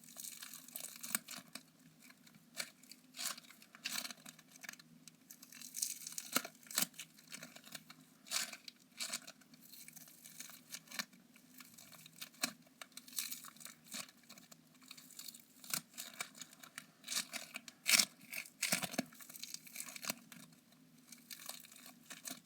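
Fab Foam play compound squished, kneaded and pulled apart in the hands, giving an irregular stream of crackling, crinkling and small tearing sounds.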